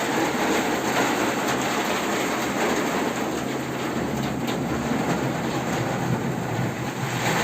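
Torrential rain pouring down in a downpour, a dense, steady hiss and patter.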